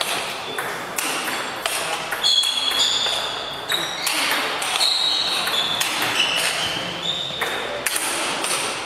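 Table tennis rally: the ball clicks again and again off bats and table in quick exchanges, while sports shoes squeak on the hall floor through the middle of the rally.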